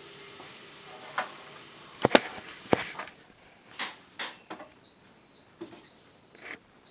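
Handling noise: a few sharp knocks and clicks, the loudest a pair about two seconds in, as the camera is picked up and moved. A faint high-pitched tone comes and goes in the second half.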